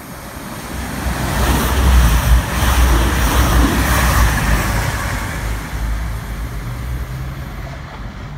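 Class 222 Meridian diesel multiple unit passing alongside the platform at speed: a deep rumble and rush of wheels and air that builds for about two seconds, holds, then fades as the train goes by.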